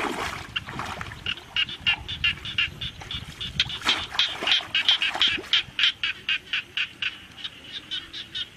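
Frog calling in a rapid series of short, high notes, about four or five a second, denser from about a second in, over the splashing of muddy paddy water being waded and groped in.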